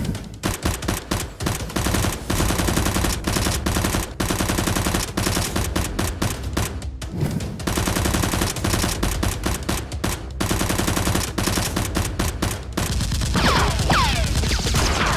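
Automatic gunfire sound effects: long rapid bursts of shots with brief breaks, laid over toy blasters being fired. Near the end, a few falling whistling tones sound over the shots.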